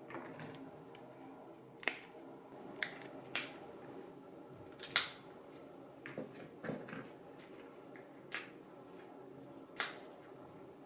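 Light clicks and taps of small household or kitchen items being handled, about a dozen at irregular spacing, a few with a brief ring, over a faint steady hum.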